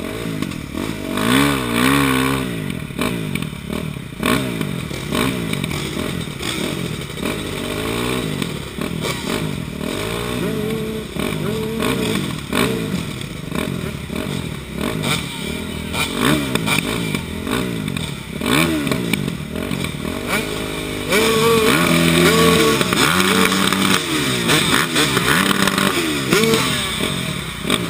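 Dirt bike engines revving up and down in repeated blips as the bikes ride slowly in a group. About three quarters of the way through, the revving gets louder and is held at steady higher pitches.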